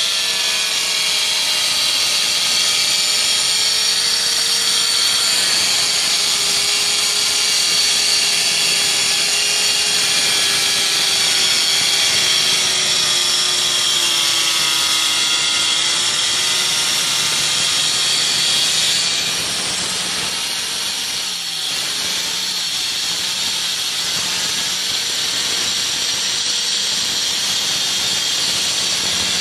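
Handheld electric tile cutter running and cutting along a floor tile to rip off an 8 cm skirting strip: a steady motor whine over a high grinding hiss. The pitch sags slightly under the load of the cut, and the sound eases a little just past the middle.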